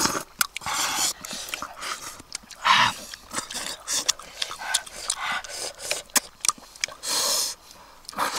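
Close-up eating noises from people biting into and chewing cooked fish: irregular smacking, clicks and short breathy rushes.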